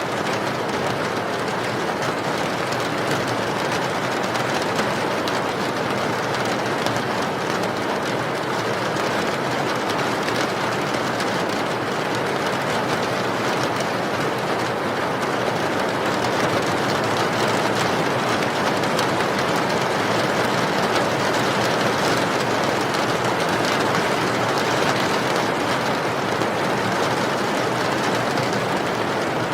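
Steady, unbroken rain noise, a dense even hiss of heavy rainfall without distinct drops or changes.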